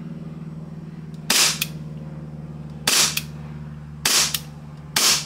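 KJ Works KP-19 gas blowback airsoft pistol firing four single shots at an uneven pace, each a sharp crack of gas and slide cycling, fed from a Tokyo Marui Hi-Capa magazine that works in it. A steady low hum runs underneath.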